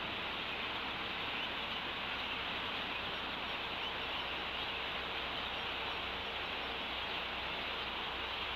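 Steady, even hiss of background noise from the nest camera's microphone, brightest in the upper middle range, with no distinct calls or knocks.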